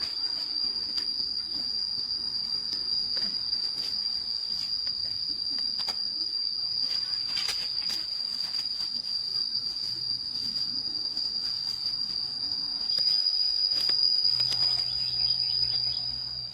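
Insects trilling in a steady, high-pitched chorus. A faint low hum joins in near the end.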